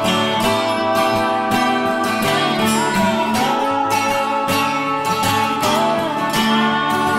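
Background music: strummed acoustic guitar with a steady beat and a few gliding notes.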